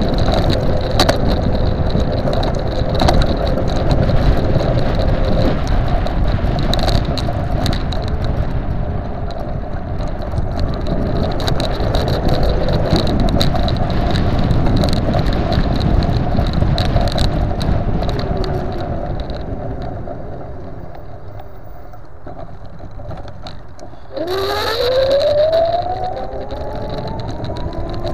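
Custom 48-volt electric scooter, a modified Xiaomi M365, riding along a paved path. Tyre rumble and wind on the microphone are the main sound, with scattered knocks over bumps. It goes quieter about twenty seconds in, then the electric motor's whine rises steadily in pitch near the end as the scooter speeds up.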